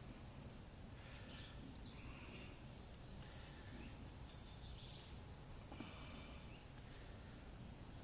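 Steady high-pitched insect chorus, with a few faint short sounds in between.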